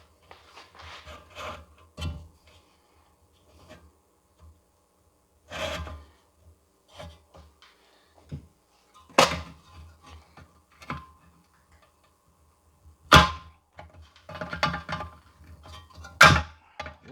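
Hand work on a Briggs & Stratton mower engine's recoil starter: scattered clicks and rubbing, with three sharp knocks about nine, thirteen and sixteen seconds in.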